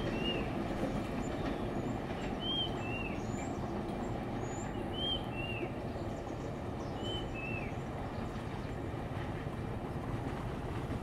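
Diesel-hauled passenger train (a WDM-2A locomotive with its coaches) rumbling steadily as it moves away along the track. A bird repeats a short two-note whistled call, high then slightly lower and falling, four times at about two-and-a-half-second intervals.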